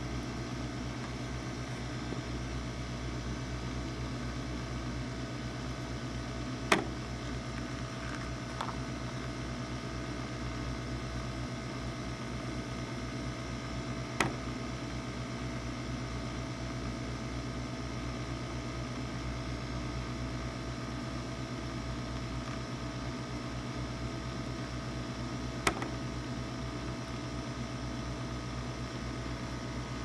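Steady fan-like whir with a low hum under it, broken by three short sharp clicks spread across it.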